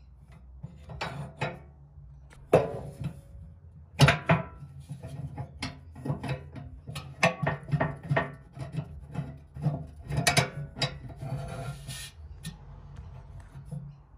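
Metal parts of a pottery wheel's drive assembly handled by hand: a flat steel mounting bar rattled against rods while a nut is worked on its bolt, giving clinks, knocks and scrapes. Two sharp knocks stand out about two and a half and four seconds in, followed by a busy run of smaller clinks.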